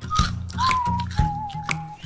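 Background music: a whistled melody over a light, steady beat of about two strikes a second with a bass line.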